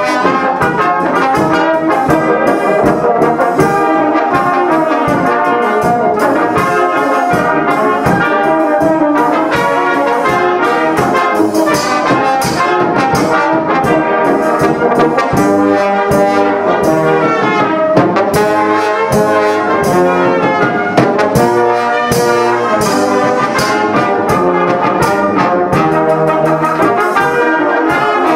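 Brass band of trumpets, trombones and other brass horns playing together, a full, steady passage of sustained chords and moving melody.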